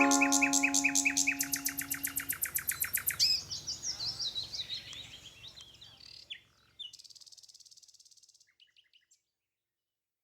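The last ukulele chord rings out and fades over the first two seconds while birdsong plays: a rapid run of evenly repeated chirps, then falling chirp notes and a quick trill, dying away to silence about nine seconds in.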